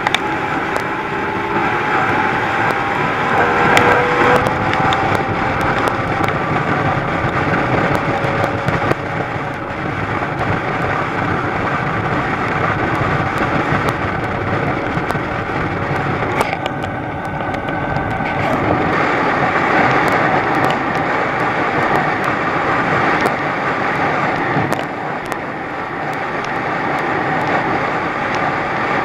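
Thundercat inflatable race boat under way at speed: its outboard engine running hard, the pitch shifting a little in the first few seconds, over a steady rush of wind and spray with frequent sharp knocks as the hull bounces over the chop.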